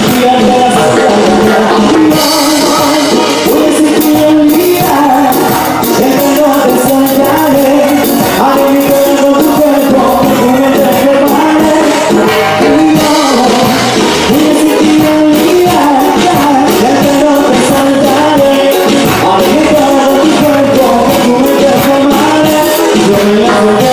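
A live band with keyboards playing loud Latin music, with a male singer singing into a microphone.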